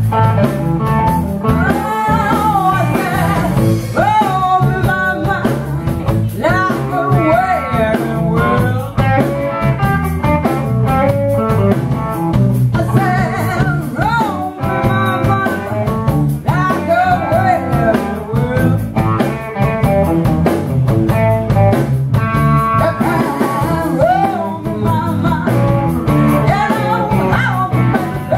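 A woman singing live into a microphone with a blues and rock-and-roll band, guitar among the instruments, over a steady driving beat.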